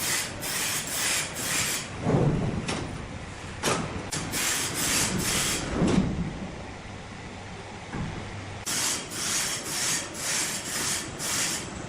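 Wood being sawn or rasped with rhythmic strokes, two to three a second, pausing in the middle. A few heavy thuds of wood are the loudest sounds.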